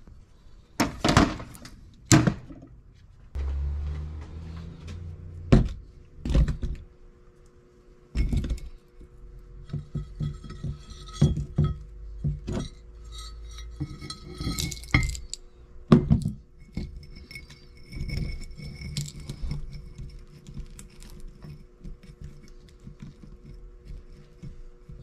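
Irregular clinks and knocks of scrap metal being handled. Two louder clanks come about one and two seconds in as a microwave transformer is set on a steel shelf. Then come smaller clinks and rustles as loose copper wire and a copper coil are handled and packed into a crucible.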